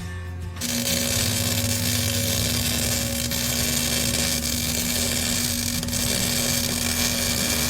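A power tool running steadily in a workshop: an even, loud hiss with a steady hum under it, starting about half a second in and stopping abruptly near the end.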